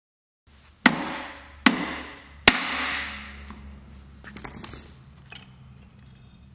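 Three sharp metal knocks about a second apart, each ringing out briefly, then a quick run of lighter metallic clinks as an aluminium case section of a Mazda FD RX-7 transmission is worked loose and lifted off the gear stack.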